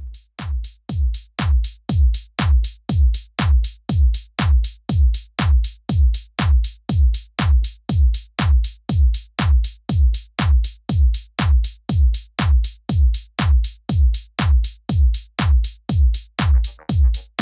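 Electronic background music: a drum-machine kick beating steadily at about two beats a second, starting abruptly out of silence, with another layer of sound joining near the end.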